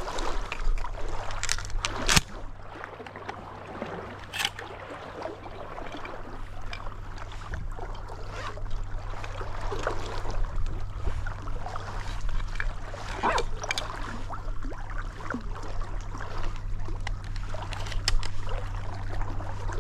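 A kayak being paddled through shallow flooded willows: water splashing and trickling off the paddle, with several sharp knocks, over a steady low hum.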